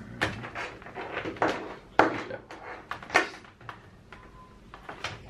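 Cables and a laptop being handled on a desk: rustling and scraping with several sharp clicks and knocks, the loudest about two seconds in. A short steady beep sounds about four seconds in.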